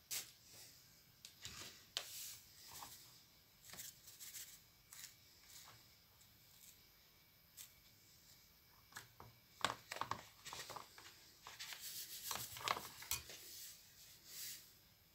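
Faint, scattered rubbing and clicking handling noises as hands turn a filled latex balloon over a glass dish, thicker in the second half. Scissors snip at the balloon's neck near the end.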